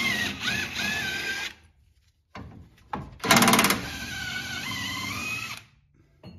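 Cordless impact wrench with a 14 mm socket running out the center support bearing bolts of a Toyota Tundra's rear driveshaft, in two runs: the first winds down about a second and a half in, and the second starts a moment later with a short burst of hammering, then spins freely with a rising whine as the bolt backs out.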